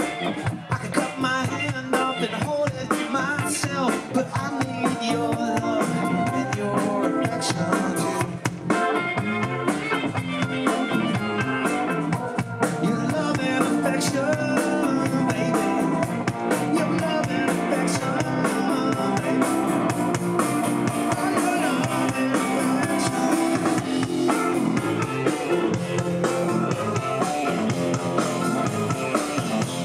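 Live rock band playing amplified through a stage PA: electric guitars and a drum kit driving a full, continuous song.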